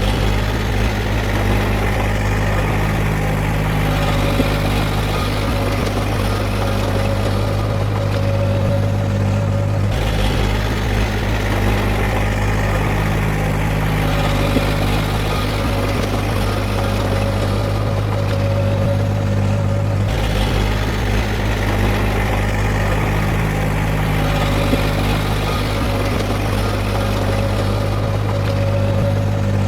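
Diesel engine of heavy earthmoving machinery running steadily with a deep, even hum. The same sound pattern repeats about every ten seconds.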